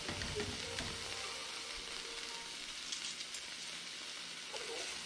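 Slices of beef sizzling in a frying pan: a steady hiss with a few faint crackles.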